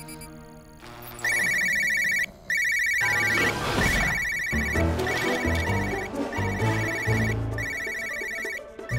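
Smartphone ringtone for an incoming call: a high, rapid electronic trill ringing in repeated bursts of under a second each. Low background music comes in under it about three seconds in.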